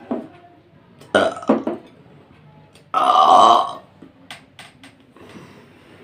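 A woman burping loudly: a short, broken burp about a second in, then a longer, louder burp about three seconds in.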